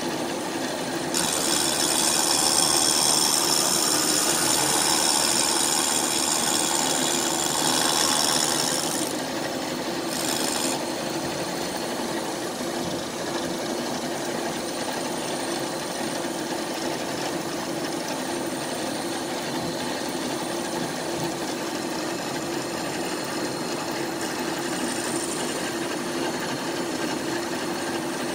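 Power tool spinning a rotary cutter into the cast-iron combustion chamber of a Ford Kent cylinder head, cutting metal away to reshape the chamber. A steady motor tone runs under a grinding, rasping cut that is loudest for about the first eight seconds, then eases to lighter cutting, with a short louder flare near the end.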